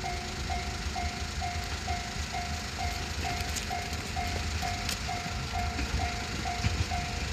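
Japanese railway level-crossing warning bell ringing its electronic "kan-kan" alarm, one steady tone struck evenly about two and a half times a second.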